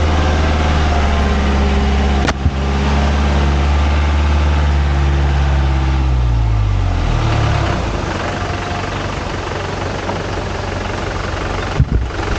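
A vehicle's engine runs steadily, then its note drops and fades out about seven seconds in, leaving a rushing noise. A click comes a couple of seconds in, and a few knocks come near the end.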